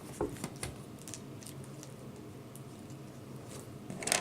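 Light plastic clicks and taps from handling a laptop's display ribbon cable and its connector as the cable is reinserted: a few small clicks near the start and a sharper click near the end, over a faint steady room hum.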